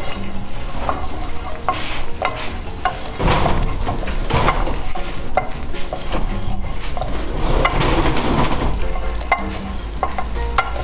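Chopped garlic and crushed chilli flakes sizzling in a little hot oil in a pan. They are being stirred with a utensil that clicks and scrapes against the pan many times, and the sizzle swells louder twice.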